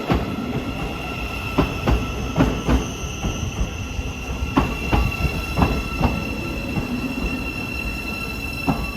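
Class 717 electric multiple unit passing along the platform, with a steady high-pitched wheel squeal and a series of irregular knocks from its wheels going over the rail joints.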